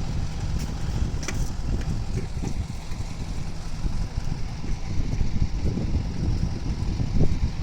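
2008 Harley-Davidson Dyna Low Rider's Twin Cam 96 V-twin idling through Screamin' Eagle mufflers, a steady low pulsing exhaust note.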